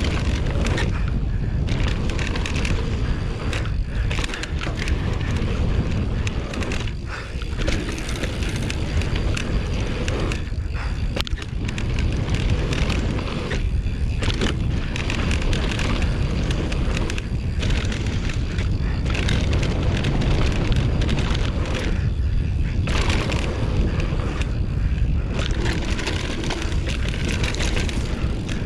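Mountain bike riding fast down a dirt trail on a GoPro: constant wind rush on the microphone over the rumble and clatter of tyres and bike on rough ground, with a few brief dips.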